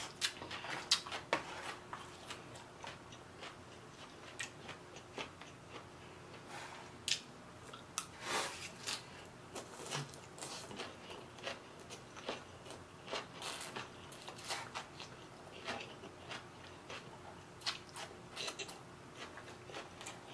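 Close-miked chewing and mouth sounds of a person eating rice vermicelli noodles with grilled pork and raw vegetables, with many short, soft clicks and smacks scattered irregularly, over a faint steady hum.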